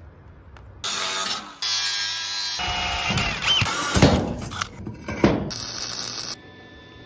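A series of abruptly cut metalworking sounds. A power tool runs on steel, then a drill bores through rectangular steel tubing with a hole cutter, and about six seconds in comes a short stretch of welding crackle.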